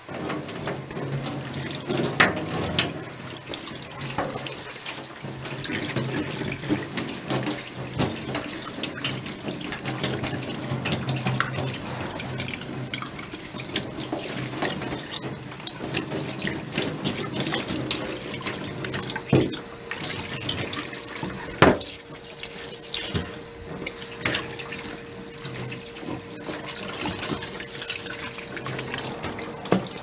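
Tap water running and splashing onto a wet-dry vacuum's cloth filter in a stainless steel sink as it is rinsed and rubbed by hand, with scattered sharp knocks and splashes. A faint steady tone joins in a little past halfway.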